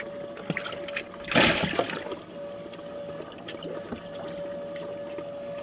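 Water sloshing and splashing in a boat's live well as a hand grabs for fish, with one louder splash about a second and a half in. Under it, the live well discharge pump runs with a steady hum.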